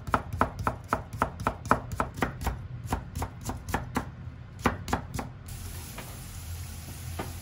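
Kitchen knife julienning carrot and burdock root on a wooden cutting board: quick, even knocks of the blade on the board, about four a second. About five seconds in they stop, giving way to the faint sizzle of the cut vegetables stir-frying in a pan.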